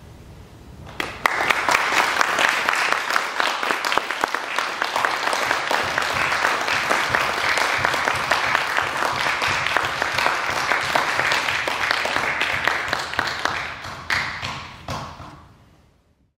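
Audience applauding, starting about a second in, then thinning and dying away near the end.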